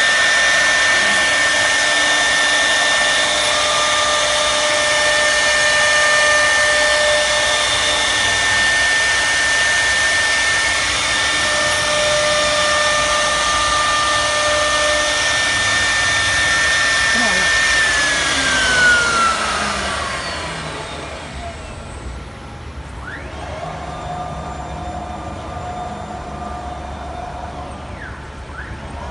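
High-speed CNC router spindle running with a steady high whine over loud hissing noise, then spinning down in a falling whine about eighteen seconds in, leaving a quieter low hum.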